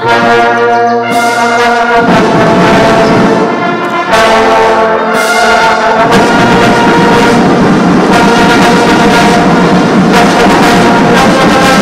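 Ceremonial brass band playing slow, sustained chords that change every second or two.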